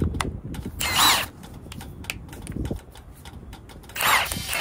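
Milwaukee M18 1/2-inch cordless impact wrench run in two short bursts, about a second in and again near the end, working a torsion bar mounting bolt loose on a semi truck, with light clicks and rattles of the socket and tool being handled between.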